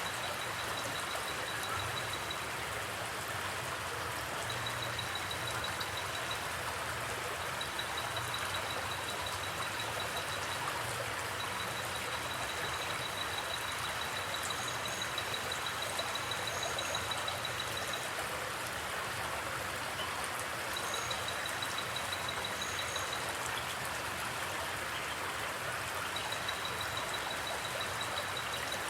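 Steady rush of a flowing forest creek. A thin, high, fast-pulsing trill comes and goes over it in stretches of a few seconds, with a few short high chirps.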